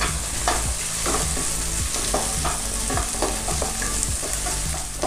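Wooden spatula stirring and scraping chopped onion, capsicum and green chilli around a kadai, with short irregular scrapes several times a second over a steady sizzle of hot oil as the vegetables sauté.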